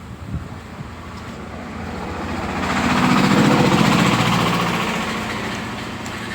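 A motor vehicle's engine passing by: it grows louder from about two seconds in, is loudest near the middle, and fades away again.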